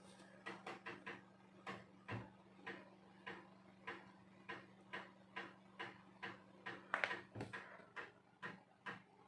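3.5-inch floppy disk drive reading while files are copied off the disk: a steady run of short clicks, about two to three a second, as the read head steps across the tracks, over a faint low hum.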